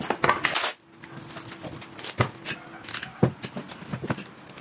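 Scattered clicks, knocks and crackles from wooden cutting boards being handled and taped together with adhesive tape; no motor running.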